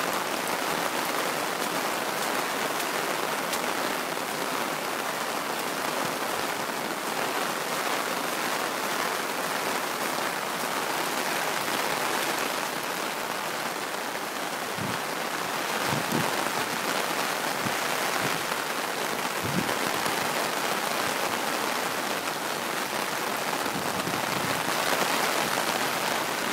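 Heavy typhoon rain falling steadily, a dense even hiss that swells a little at times, with a few brief low thumps about halfway through.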